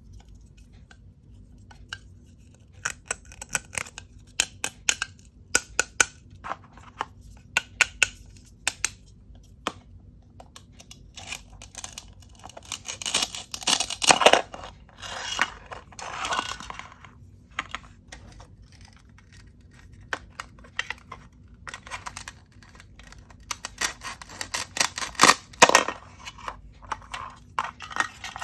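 Plastic toy fruits and vegetables being cut apart with a toy knife. Many sharp plastic clicks and taps, with longer scratchy ripping sounds in the middle and again near the end.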